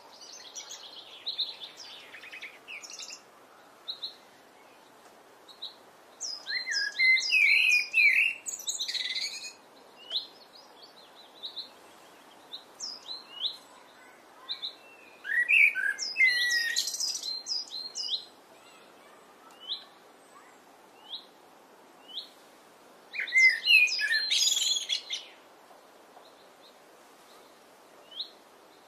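Common blackbird singing: three song phrases, each a low fluted warble that breaks into high twittering, with short high chirps in the pauses between.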